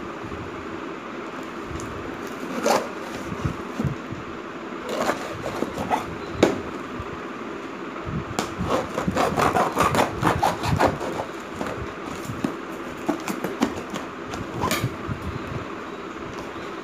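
A knife scraping and slitting the packing tape on a cardboard shipping box, in scratchy cutting strokes that come thick and fast a little past the middle, with a few sharp knocks from the box being handled, over a steady background hum.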